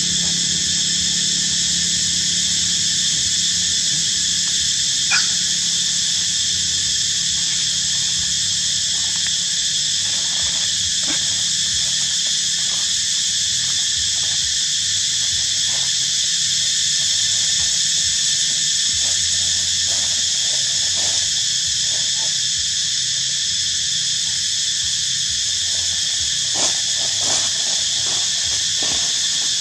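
Steady high-pitched droning of insects in the forest, a continuous chorus of several shrill tones that never changes. About five seconds in there is a short rising squeak, and faint ticks and rustles come here and there.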